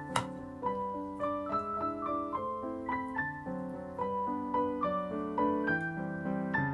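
Background piano music: a light melody of short notes over a steady accompaniment, with one sharp click just after the start.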